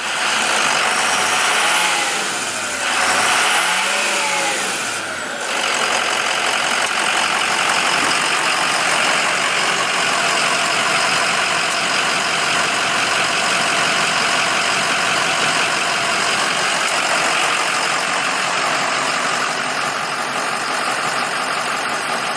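2005 Ford F350's engine running, freshly fitted with a new water pump. It is revved up and back down twice in the first few seconds, then settles to a steady idle.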